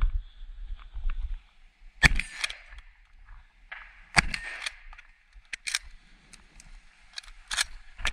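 Shotgun firing 00 buckshot: two loud shots about two seconds apart, with lighter clacks between them and a thinner, sharper crack near the end.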